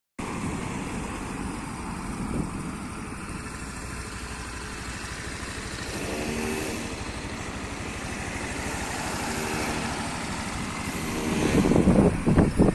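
Vento Naked scooter's 150 cc forced-air-cooled engine running steadily, growing louder and rougher near the end.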